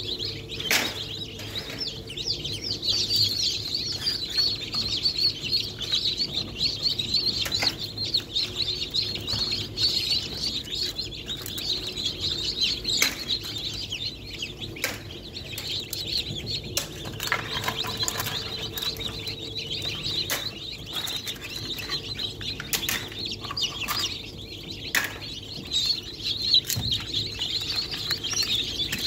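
A crowd of newly hatched chicks peeping continuously and densely, with scattered short clicks and a faint steady hum underneath.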